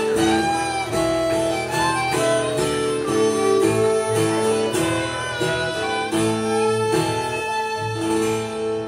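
Live acoustic band playing the closing instrumental bars of a song: harmonica over strummed acoustic guitar, bowed fiddle and plucked upright bass.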